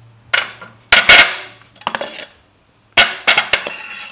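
Steel hammer heads clanking against the steel hammer holders on the side of an anvil stand as hammers are dropped into and lifted out of them: about seven sharp metal clanks with brief ringing, in three groups, the loudest just after a second in.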